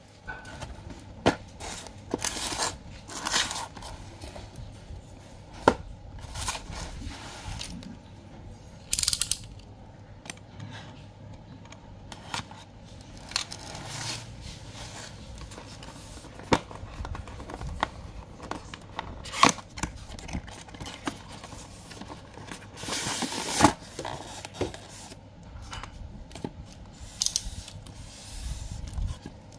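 A cardboard box and its polystyrene foam packaging handled and opened by hand: scattered sharp taps and clicks with short scraping and rustling sounds.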